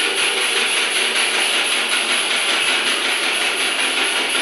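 Constant hammering from two looped video recordings, one hammer striking wood and the other metal, blurring into a steady, dense clatter.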